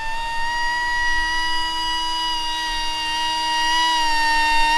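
Electric rocket's brushless motor and propeller running under power with a steady, pitched whine.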